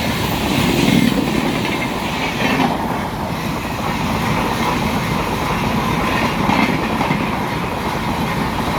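Rajdhani Express passenger train running through a station at high speed: a loud, steady rush of wheels on the rails.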